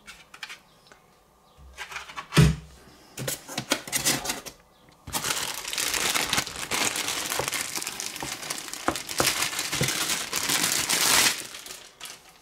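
Packaging being handled during an unboxing: a few knocks and rattles, the loudest about two seconds in, then about six seconds of steady crinkling as the wrapping is pulled open.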